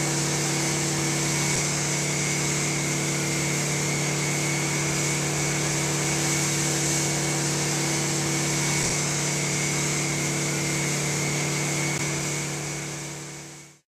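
Fire hose flowing under pump pressure: a steady pump-engine drone with the high hiss of the water stream, unchanging, then fading out near the end.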